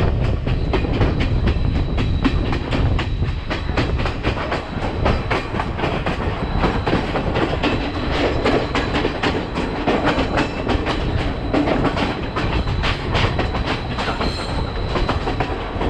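Sri Lanka Railways Class S12 diesel multiple unit running along the line, heard from an open window of the carriage. There is a continuous low rumble, a dense run of wheel clicks over the rail joints, and a faint steady high whine.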